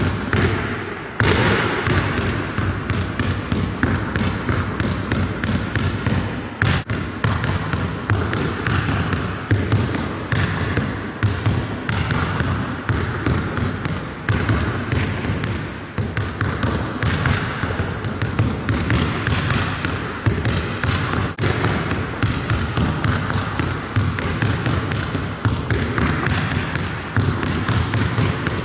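Several basketballs being dribbled at once on a hard court, a dense, continuous, uneven clatter of bounces.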